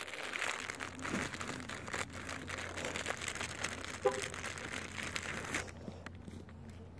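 Close rustling and crinkling of coat fabric right at the microphone as a deer presses and rubs against it, with a brief pitched squeak about four seconds in; the rustling stops suddenly about five and a half seconds in.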